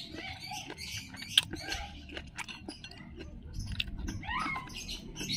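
Close-up eating sounds: chewing and lip smacks as tender meat is bitten off a beef rib bone, with scattered crackly clicks and one sharp click about a second and a half in.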